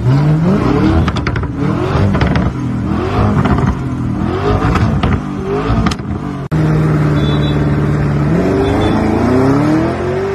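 Lamborghini Urus twin-turbo V8 revved hard several times while standing, the engine note sweeping up and down with sharp cracks between revs. Then, after a brief break, it holds a steady note and accelerates away, the pitch climbing.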